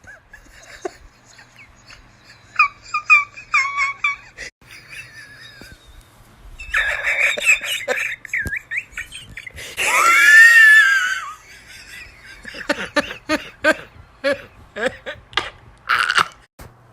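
A person's wheezing laughter: high-pitched squeaks in quick runs and breathy gasps, with one longer high note about ten seconds in.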